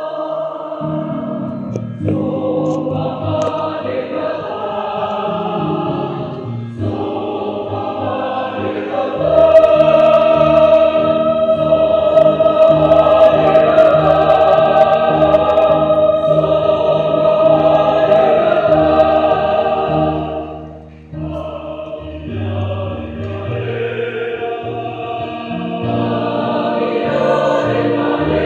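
Mixed church choir singing a Christian hymn in Batak. The singing grows louder about a third of the way in, with a brief break between phrases about three quarters of the way through.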